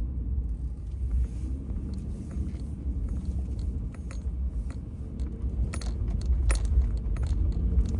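Car driving slowly through deep, unplowed snow: a steady low rumble of engine and tyres, with irregular small clicks and rattles scattered through it, a couple of sharper ones past the middle.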